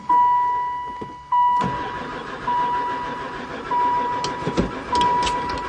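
A van's starter cranking the engine over without it firing, starting about a second and a half in, the engine now with gas in it; the owner suspects there is no spark. A dashboard warning chime dings over and over at one steady pitch throughout.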